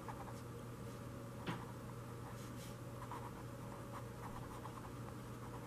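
Faint strokes of a felt-tip marker writing on paper, with a small tap about a second and a half in, over a low steady hum.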